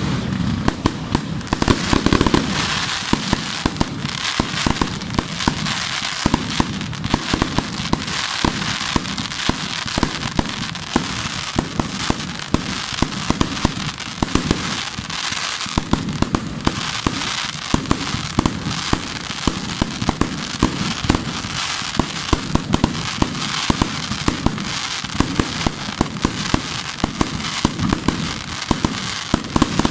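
Fireworks going off in a dense, unbroken barrage of sharp bangs and crackling.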